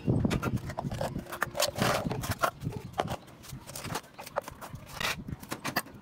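Irregular knocks, clicks and clatter of tins, jars and lids being handled and set down on a concrete floor.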